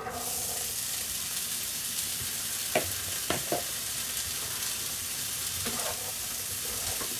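Pinto beans frying in hot oil in a pan. The sizzle starts suddenly as they go in and then hisses steadily, with a few short knocks about three seconds in.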